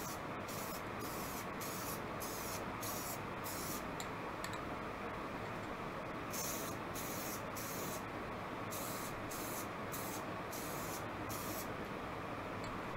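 Aerosol spray-paint can hissing in a quick run of short bursts, about two a second, with a pause near the middle, as a light base coat (undercoat) is dusted on.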